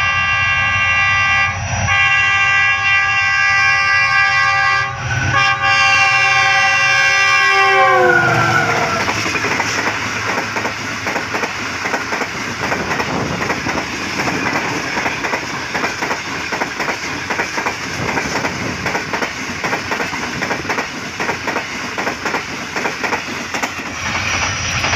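A Pakistan Railways Green Line Express passing at speed with its locomotive horn blowing. The multi-tone horn sounds for about eight seconds, dipping briefly twice, then drops in pitch as the locomotive goes by. The coaches follow with a steady rattle and clickety-clack of wheels over the rail joints.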